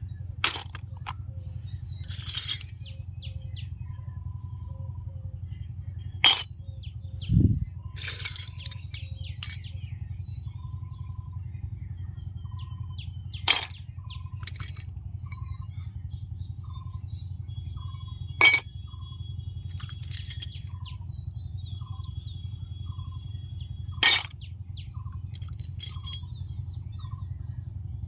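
Sharp clicks and taps of small plastic miniature kitchen-set toy pieces being handled and set down, one every few seconds, with a single dull thump about seven seconds in, over a steady low hum.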